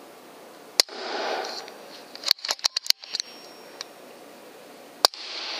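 Two shots from an FX Impact M3 .25 PCP air rifle, each a sharp crack, about four seconds apart, each followed by about a second of rustling. Between them comes a quick run of metallic clicks as the rifle is cycled for the next pellet. Two rats are hit in quick succession.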